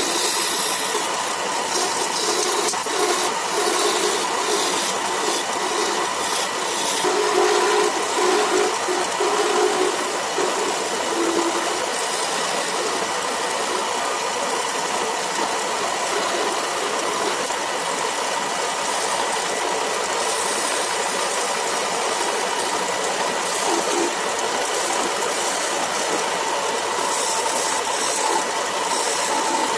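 Wood lathe running with a turning tool cutting a spinning wooden spindle: a steady machine whir, with the hiss of the cut coming and going.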